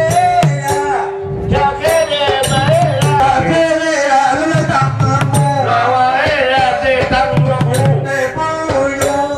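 Nora ensemble music: sharp repeated clicks of small cymbals and clappers over rhythmic hand-drum beats and a held steady tone, with a performer singing through the middle.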